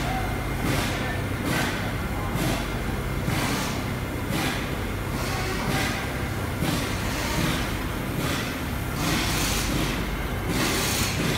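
Steady low machinery hum, with short rustling and scraping noises every second or so as the valve's metal stem and rubber O-rings are handled on cardboard.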